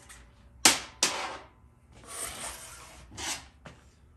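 Workshop handling sounds: two sharp knocks about a second in, then a rasping rub and a couple of smaller knocks and clicks.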